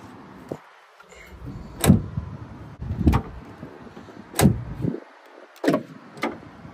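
A series of five sharp thumps, about one to one and a half seconds apart, the loudest about two seconds in.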